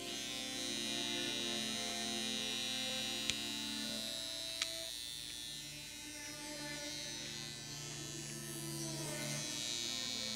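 Electric hair clippers buzzing steadily as they cut hair, with two short, sharp clicks about three and four and a half seconds in.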